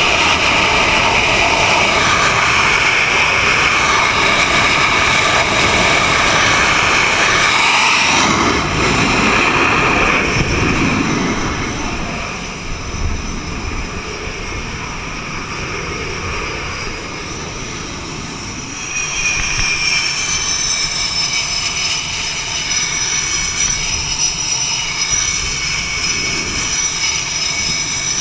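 F/A-18 jet engines running at full power on a carrier catapult, with a deeper surge about eight seconds in as the jet is launched, after which the noise drops. A second F/A-18's engines come in with a steady high whine later on as the next jet moves up to the catapult.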